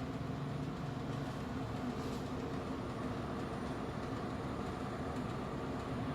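Kolin air conditioner running with a steady low hum and a continuous rattle: the rattling noise fault in the unit.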